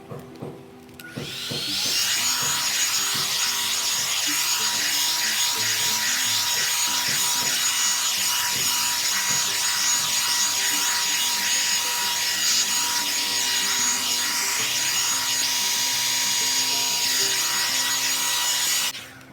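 One-step hot-air brush blow dryer running with a steady rushing whine, switched on about a second in and cut off near the end, over soft background music.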